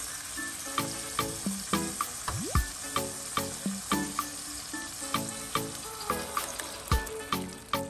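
Tomato slices sizzling in hot oil in a frying pan, with a steady crackling hiss. Background music with a regular beat plays over it.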